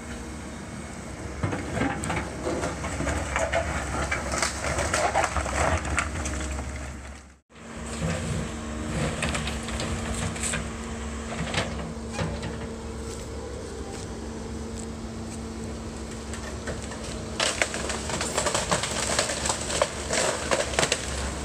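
Volvo excavator's diesel engine running steadily while the machine tears down a brick and concrete-block building, with crashing and clattering of falling masonry and timber. The crashing comes in two spells, in the first third and again near the end, with the engine hum carrying on between.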